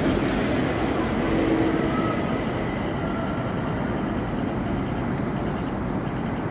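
Steady rumble of city traffic, with a brief faint whine about a second and a half in.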